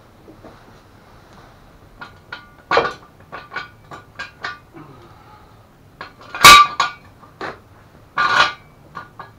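Metal clinks and clanks, as of tools and steel parts being handled and set down. There are several separate knocks with a ringing metallic tone, the loudest about six and a half seconds in.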